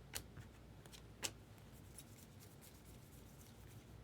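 Mostly near silence, with two faint, brief clicks about a second apart from trading cards being handled and slid against each other.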